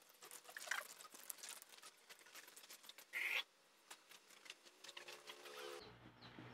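Water from a hose pattering and splashing on a plastic car bumper, with many small scattered clicks and a brief louder burst about three seconds in. Near the end a sharp cut brings in background music with repeated high chirping notes.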